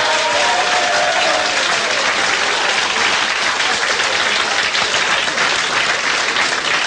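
Game-show studio audience applauding steadily, with some laughter and whooping voices over the clapping in the first second or so.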